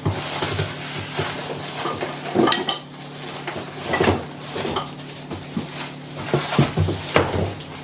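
Hand tools being unpacked from their packaging: rustling with scattered knocks and metal-on-metal clinks, a few of them ringing briefly.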